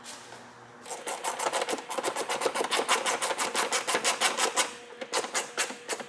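Hand ratchet with a socket clicking in rapid runs as it is swung back and forth, tightening a front bumper screw at the wheel arch. The clicking stops briefly about five seconds in, then a few more clicks follow.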